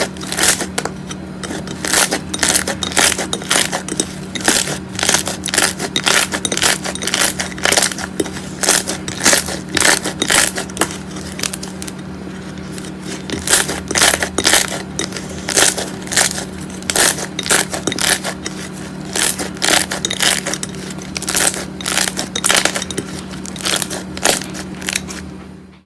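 Slime being squeezed and pressed by hand, giving sharp crackling pops about two or three times a second, over a steady low hum.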